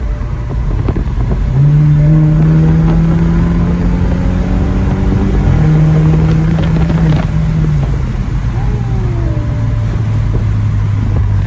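Twin-turbo BMW 4 Series engine pulling hard under acceleration, heard from inside the car. The note climbs for a few seconds, dips briefly at an upshift about five and a half seconds in, pulls again, then eases off near eight seconds.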